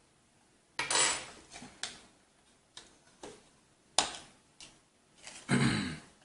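Small cooler mounting hardware clicking and clinking as it is handled: a string of separate light knocks, with a longer clatter near the end as the loudest part.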